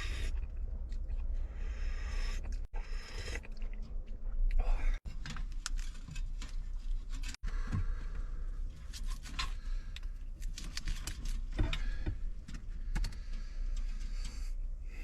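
Close-up eating sounds: a person chewing and biting food, with many small clicks and scrapes, over a steady low rumble.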